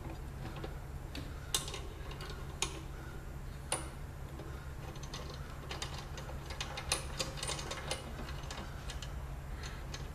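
Scattered light clicks and ticks of hands handling and adjusting a benchtop drill press, with a few sharper taps, over a steady low hum.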